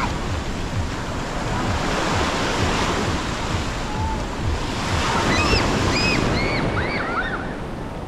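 Surf washing onto a beach with wind buffeting the microphone. About five seconds in comes a quick run of short, high, arched calls.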